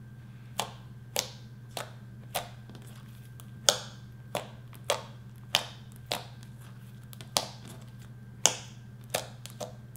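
Fingers pressing into and pulling out of thick, glossy slime, making a series of sharp, sticky pops and clicks as air pockets burst, about fourteen at an uneven pace, the loudest about a third of the way in and again near the end.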